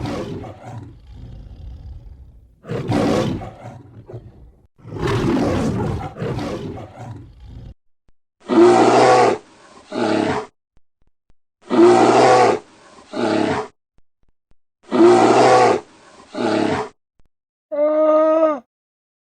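Zoo animals calling in turn: three rough, noisy roar-like calls, then three matching pitched calls, each with a shorter call just after, and another short pitched call near the end.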